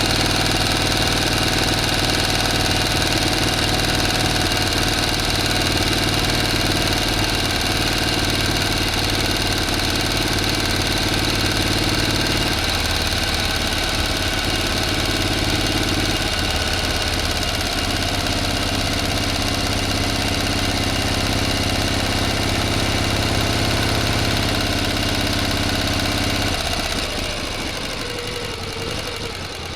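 A motor running steadily with a constant hum and many steady tones; its low rumble shifts in character a few times, and the sound eases off slightly near the end.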